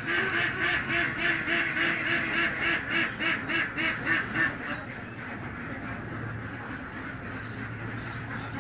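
A voice making a rapid run of short, nasal calls, about four a second, that stops about five seconds in, leaving a faint steady low hum.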